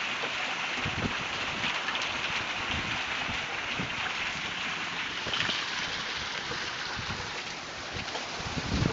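Heavy driving rain pouring down in a thunderstorm, a dense steady hiss, with a few low gusts of high wind buffeting the microphone about a second in and again around four seconds.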